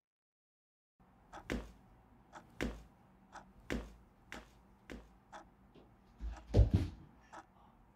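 A second of silence, then a person's footsteps on the floor, the heavier ones about once a second. A loud, heavy thump about six and a half seconds in as he sits down heavily.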